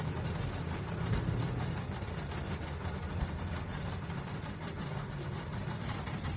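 Metal lathe running steadily, turning a mandrel as steel wire is wound onto it into a coil spring: a low motor hum with faint scattered ticks from the wire and guide.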